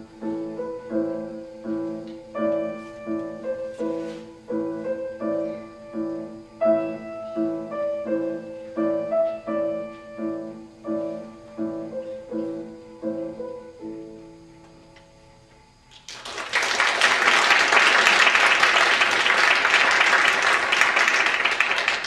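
Grand piano played at about two notes a second, the last notes ringing out about fourteen seconds in. A couple of seconds later an audience starts applauding, louder than the piano.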